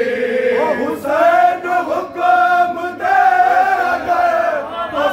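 A group of men chanting an Urdu noha (mourning lament) together, a lead voice at the microphone with the others joining. The singing comes in long held phrases that break off about once a second.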